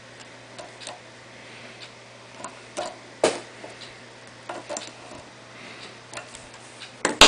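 Irregular small metallic clicks and taps as the tabs of a right-angle audio plug are bent over onto the cable to hold it in place, the sharpest click near the end.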